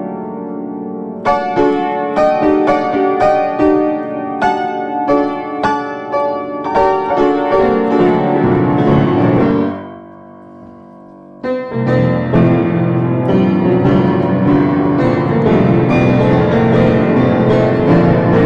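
Instrumental music led by struck keyboard notes in a repeating pattern. It thins to a quiet held sound for a second or two about ten seconds in, then comes back fuller.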